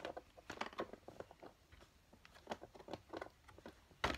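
Faint scattered crinkles and clicks of a doll box's clear plastic packaging being handled and cut with scissors, with a sharper, louder click near the end.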